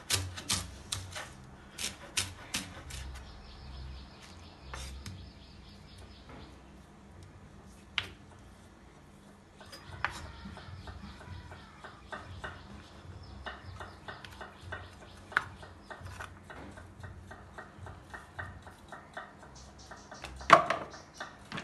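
Kitchen knife chopping vegetables on a wooden cutting board: quick runs of sharp taps on the board, broken by pauses and scattered single knocks, with one louder knock near the end.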